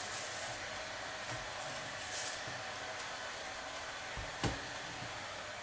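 Thin plastic sheeting rustling lightly as it is smoothed by hand over dough on a baking tray, over a steady hiss, with one soft knock about four and a half seconds in.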